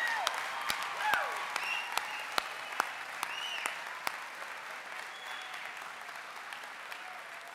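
Large audience applauding in a hall, the clapping dying down gradually. A few high pitched calls rise over it in the first four seconds.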